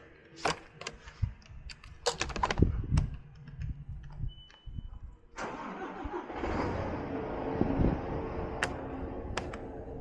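Sharp clicks and clanks, then a short high beep, then the loader-crane truck's engine starts about halfway through and settles into a steady run.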